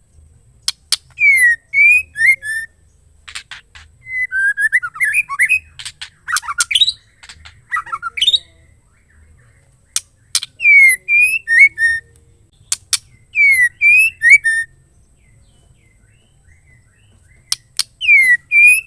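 Female white-rumped shama calling: sharp ticks followed by quick down-slurred whistled notes, in short groups repeated every few seconds with pauses between. A busier run of notes comes a few seconds in.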